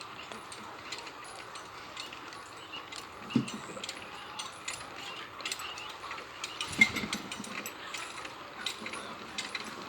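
Gear-and-ratchet mechanism of an automatic poultry-house tarpaulin curtain system running, with steady irregular clicking and two louder knocks, about three and a half and seven seconds in.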